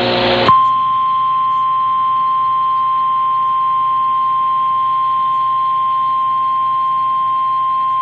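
Emergency Alert System attention signal: one steady, even electronic alert tone near 1 kHz that begins about half a second in, cutting off a louder burst of hiss.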